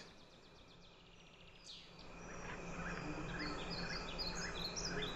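A bird calling outdoors: after a faint falling whistle, an even series of short chirps repeats a few times a second over steady background noise.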